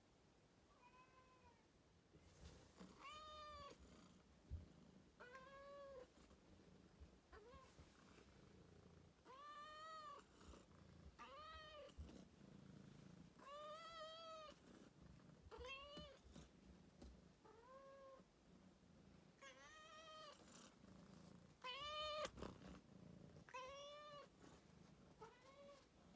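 A domestic cat meowing over and over, a rising-and-falling meow about every one and a half to two seconds, some short and some drawn out. The calls of a cat fussing after waking up.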